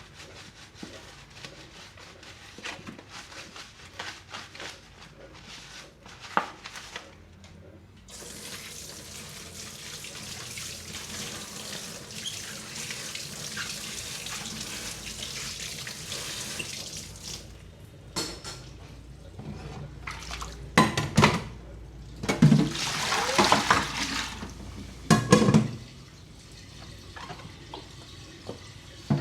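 Hand dishwashing at a kitchen sink: soft handling sounds, then a tap running steadily into the sink for about ten seconds, then dishes knocking and clattering against each other and the sink.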